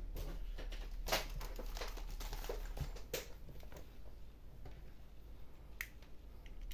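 A few faint, short clicks, the clearest about a second in, over a low steady hum.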